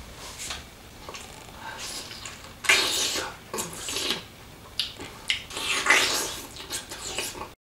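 Close-up eating sounds of a man biting into juicy roasted pineapple: a run of wet bites and chews, loudest about three seconds in and again around six seconds.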